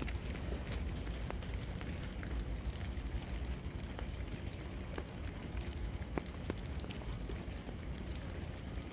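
Ice-coated tree branches thawing: meltwater dripping and small bits of ice falling, a scattered patter of sharp ticks and taps over a low steady rumble.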